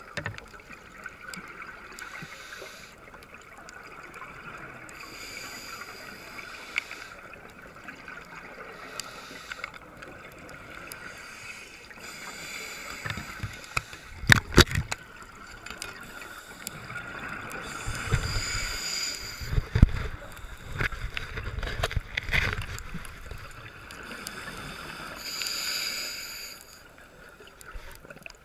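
Underwater sound of a scuba diver breathing through a regulator: a hiss and bubbly gurgle that comes back about every six or seven seconds over steady water noise. A few heavy knocks land about halfway through.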